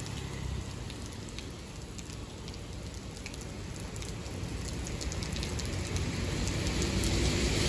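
Steady rain falling on a wet street, with scattered drop clicks and a low rumble underneath, the overall noise growing steadily louder.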